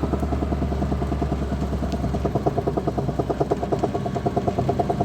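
Car's inner CV joint knocking in a fast, even rhythm, a dull woodpecker-like knock over the engine's hum: the tripod inside the joint is badly worn.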